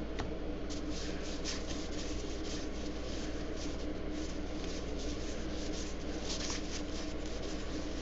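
Stack of cardboard baseball trading cards handled and flipped through, cards sliding against one another in soft, irregular rustles, over a steady low hum.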